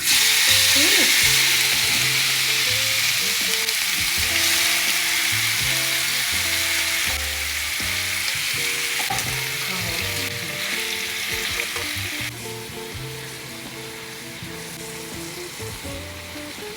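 Food frying in hot oil in a pan: a loud sizzle that starts abruptly as the food goes in, then slowly settles, dropping a step about twelve seconds in.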